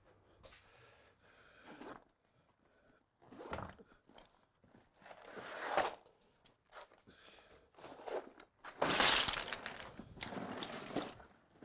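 Irregular rustling and crunching of a heavy vinyl bag being handled and lifted, with the flat stones inside it shifting and grinding together, loudest about nine seconds in.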